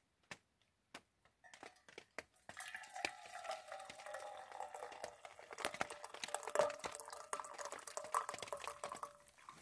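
Hot blueberry tea poured from a pot into a metal canteen cup: a steady splashing pour that starts about two and a half seconds in and stops just before the end, after a few small drips and clicks.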